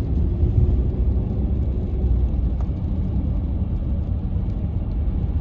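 Car driving along a street, heard from inside the cabin: a steady low rumble of engine and road noise.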